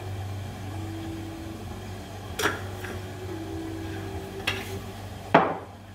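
A few sharp clicks and knocks of a plastic spice container being handled and shaken over a bowl, over a steady low kitchen hum.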